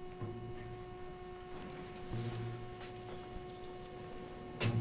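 Steady electrical hum: a low buzzing tone with a few higher overtones, held evenly over faint background noise.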